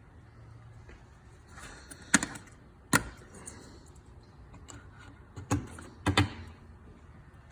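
Plastic push-pin retainer clips being pressed into a plastic upper sight shield: four sharp clicks, one about two seconds in, one at three seconds, and two more close together after five and a half seconds.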